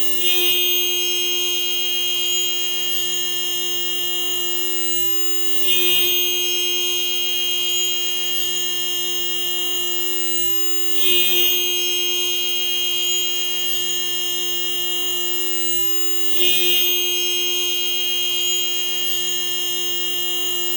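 Car horn fitted to the Daihatsu Sigra, Gran Max and Toyota Calya, held down as one steady, buzzy tone. It swells briefly about every five and a half seconds.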